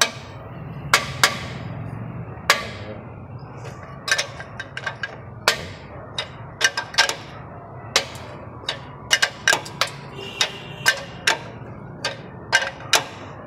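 A ring spanner on a long pipe extension clinking and knocking against a car's suspension adjusting bolt as the bolt is levered loose. The sharp metal clicks come irregularly, many of them, over a steady low hum.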